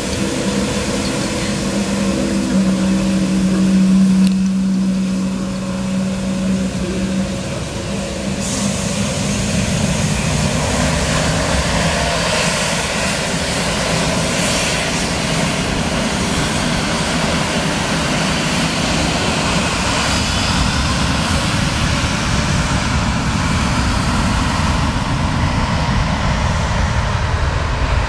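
Jet airliner engines running loud and steady. A low hum in the first few seconds gives way, from about eight seconds in, to a broad rushing noise that holds to the end.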